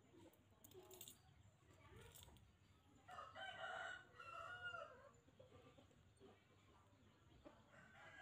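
A rooster crowing once, about three seconds in: a call lasting nearly two seconds that breaks into two parts. A few faint clicks come before it.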